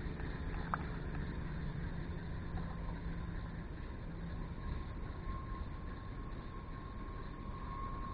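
A distant engine running steadily over a low rumble, with a faint steady whine that grows stronger after about five seconds.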